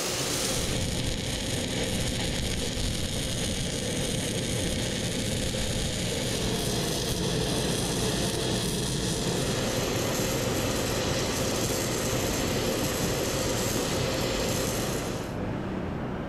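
MIG welding arc crackling steadily as beads are laid on steel bucket ears and bosses, over a steady low rush. The crackle stops about fifteen seconds in, leaving the low rush.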